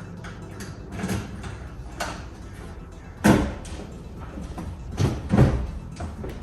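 Knocks and bumps of a pinball machine's back box and back glass being handled and opened. The loudest thump comes a little over three seconds in, and two more come close together about five seconds in.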